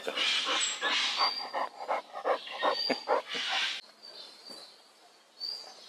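Basset hounds in a play fight, panting and scuffling in quick bursts for about four seconds before it dies down. A bird chirps now and then in the background.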